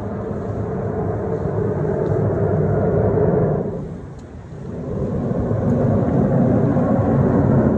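A loud, low, unexplained droning sound in two long swells, the second lower in pitch, with a brief dip between them. It is the 'strange sound' the onlookers could not place and took to be coming from the sky.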